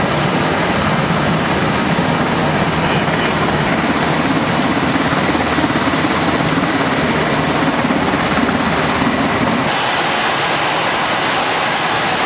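Aircraft engines running: a steady, loud noise of turbine and exhaust. About ten seconds in the sound changes suddenly, the low rumble thinning and a steady high whine coming in.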